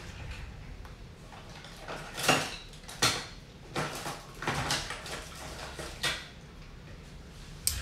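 Rummaging for a cutting tool: a string of separate clinks and knocks as hand tools and metal objects are moved about.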